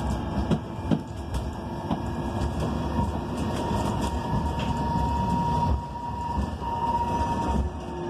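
Interior of a moving 2019 BYD K9M battery-electric bus: road and tyre rumble with interior rattles and knocks, over a thin whine from the electric drive that slowly rises in pitch as the bus gathers speed.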